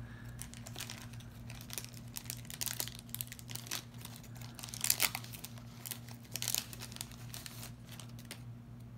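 Wrapper of a 1990 Score baseball card pack crinkling and tearing as hands peel it open, in irregular bursts of crackling that die down near the end.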